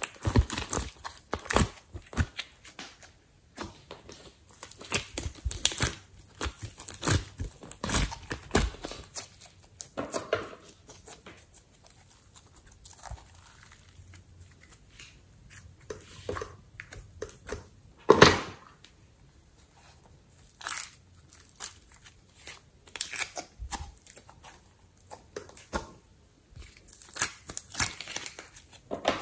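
Clay and slime squeezed and stretched by hand: a run of sticky crackling and tearing sounds, thinning out through the middle, with one louder crackle about eighteen seconds in. Near the end come clicks of a plastic container being handled.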